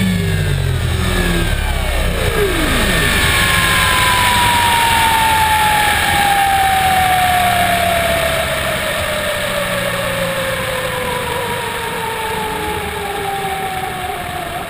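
Compass 7HV electric RC helicopter spooling down on the ground: the motor and gear whine falls steadily in pitch as the rotor slows, over a steady rushing noise.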